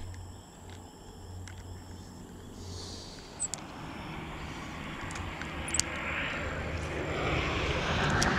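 Engine noise of a passing vehicle or plane, a steady low hum with a wide rushing noise that swells louder toward the end. Two sharp clicks come in the middle.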